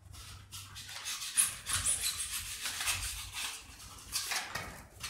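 Utility knife, blade extended far out, cutting a wedge out of the Styrofoam of an ICF block: a run of short, irregular cutting strokes through the foam.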